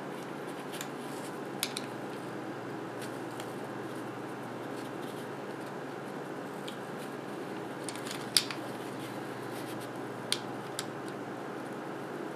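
A few sharp plastic clicks and snaps as a thin flathead screwdriver pries at the clips of a MakerBot Smart Extruder's plastic housing. The loudest snap comes about two-thirds of the way through, over steady background noise.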